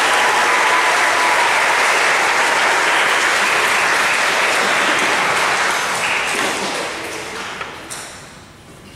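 Audience applauding, holding steady for about six seconds and then dying away toward the end.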